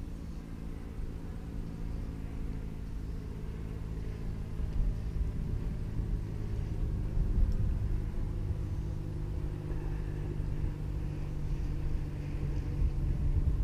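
Boat motor running steadily with a low, even hum and rumble, getting a little louder near the end.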